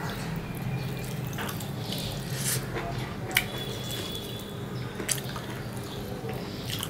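Wet mouth sounds of eating rice and curry by hand: chewing, lip smacks and fingers being sucked, as a string of small wet clicks with one sharper click about halfway through. A steady low hum runs underneath.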